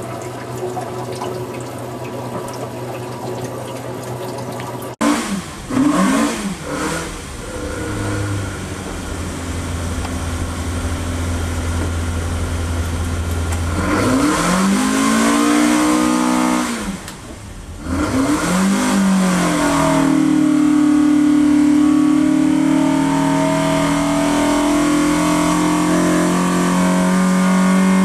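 Modified 1.8-litre Ford Crossflow four-cylinder engine running on an engine dyno. It runs steadily at first, then is blipped up and down several times, then is held at high revs, its pitch climbing slowly past about 5,600 rpm near the end.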